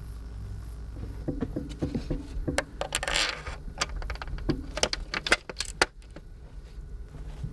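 Scattered metallic clinks and sharp clicks of mounting hardware being handled while solar modules are fitted to their frame, with a short scrape about three seconds in, over a steady low hum.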